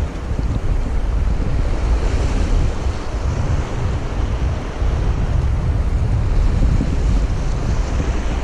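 Wind buffeting the microphone with a heavy low rumble, over the steady wash of choppy sea water around a wader.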